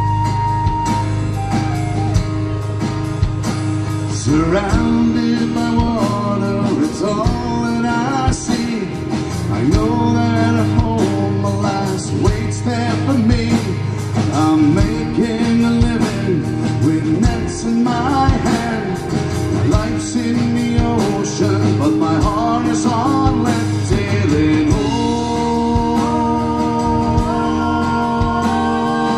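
Live folk-rock band playing with acoustic guitar, drum kit and electric bass. A wind instrument holds long high notes at the start and again near the end, with a moving melody line in between.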